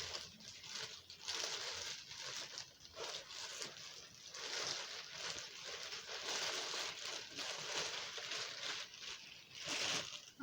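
Gift packaging rustling and crinkling in irregular bursts as items are pulled out of a gift bag.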